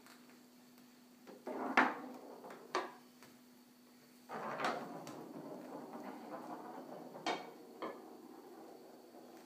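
Wooden baby push walker rolling and bumping across a hardwood floor: short stretches of wheels rolling and scraping, and a few sharp knocks.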